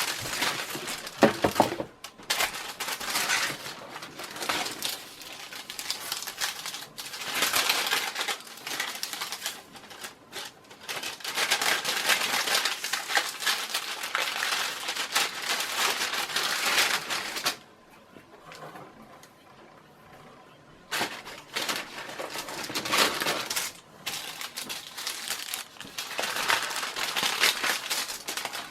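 Paper rustling and crinkling in irregular stretches as parchment-paper wrapping is handled and pulled off fan blades, with a quieter lull about two-thirds of the way through.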